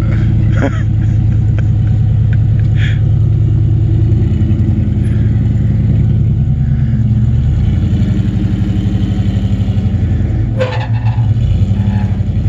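Nissan GU Patrol 4WD engine running at low revs under load as the vehicle crawls through a tight rock chute, a steady low rumble. Around ten and a half seconds in it briefly drops off, with a short sharp sound, then picks up again.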